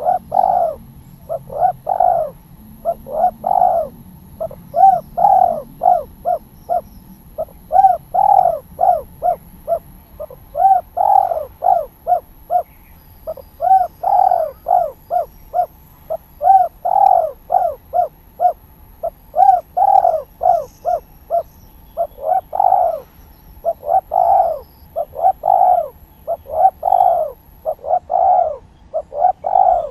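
Spotted dove (tekukur) cooing persistently in the "kuk 3" style named by dove keepers: one phrase after another of hollow coo notes, each rising and then falling in pitch, in quick groups with short pauses between.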